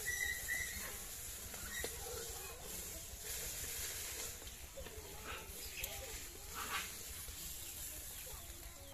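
Hot oil sizzling faintly in an iron wok over a wood fire, with a metal spatula scraping and clinking against the wok a few times over the middle as fried rohu fish pieces are lifted out onto a plate.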